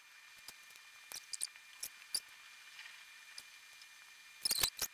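Fingers handling a laptop: faint, scattered clicks and taps, with a quick run of louder clicks near the end.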